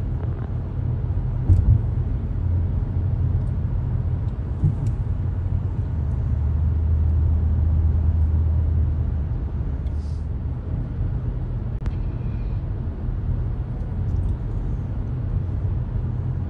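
Steady low rumble of road and engine noise from a moving car, heard from inside the car. It swells a little about halfway through. There is a brief knock about one and a half seconds in.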